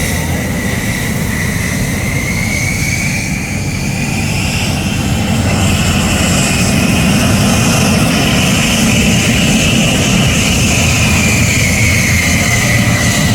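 F-15SG fighter jet engines running on the ground with a steady rumble and a high whine that rises in pitch and later falls back, growing louder about five seconds in.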